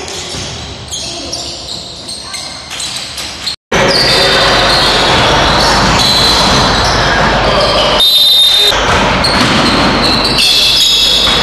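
Game sound of a basketball match in a sports hall: a ball being dribbled on the wooden court amid the voices of players and spectators. The sound drops out for an instant about three and a half seconds in and comes back louder.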